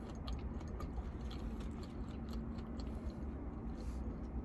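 Close-up chewing of a fried fish sandwich: soft wet mouth clicks and smacks, over a steady low rumble.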